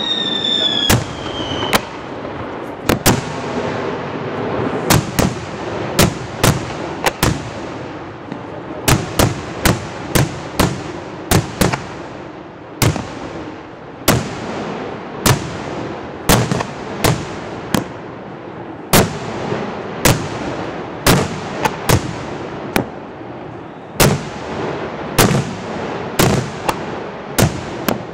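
Daytime aerial fireworks: a long, irregular run of sharp bangs as shells burst overhead, about one or two a second. A high whistle falls slightly in pitch through the first couple of seconds.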